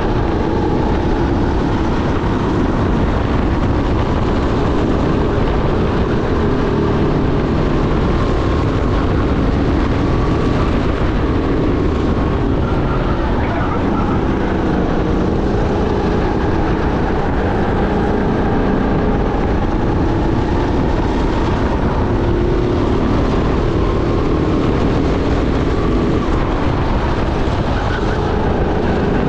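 Sodi SR5 rental go-kart engine running hard under racing load, heard onboard, its pitch rising and falling as the kart accelerates out of corners and brakes into them.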